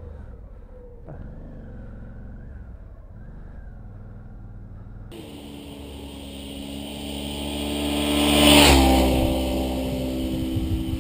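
About five seconds of muffled motorcycle idle and street traffic, then a motorcycle's V-twin engine, a 2012 Suzuki V-Strom 650, approaching, growing louder, passing about three and a half seconds later with a drop in pitch, and pulling away.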